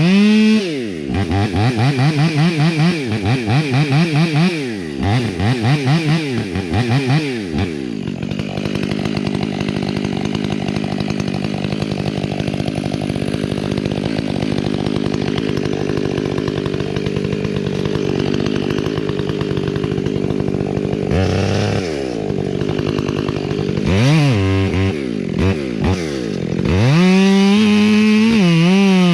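Two-stroke chainsaw revved up and down in quick throttle blips, then running at a low steady speed for about thirteen seconds. It blips a few more times and is held at high revs near the end.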